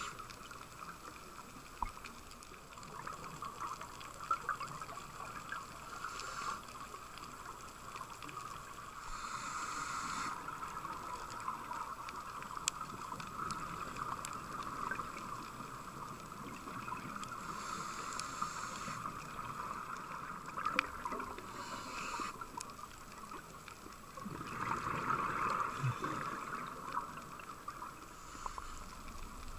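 Scuba diver breathing through a regulator underwater: about five hissing inhalations several seconds apart, and a louder rush of exhaled bubbles near the end, over a steady underwater hiss with scattered clicks.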